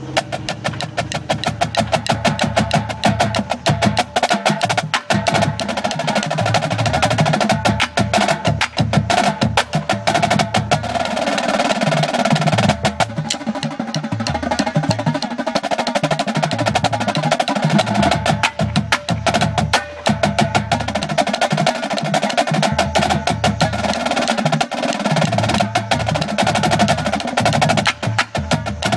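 A marching drumline with snare drums playing a fast ensemble exercise together: a dense, rapid stream of sharp snare strokes over a lower drum part, starting right at the beginning and continuing without a break.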